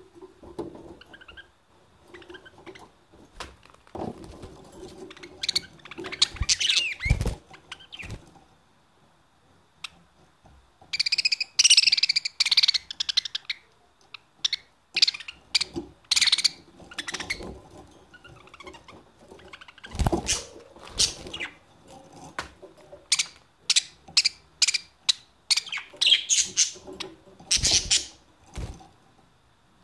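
Budgerigars chirping and chattering in quick short calls, with a dense warbling stretch about eleven seconds in and a few dull knocks among the calls.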